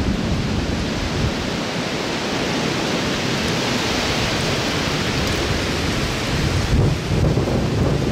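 Strong wind rushing through the woods and buffeting the microphone: a steady loud rush with low rumbling gusts that grow heavier near the end.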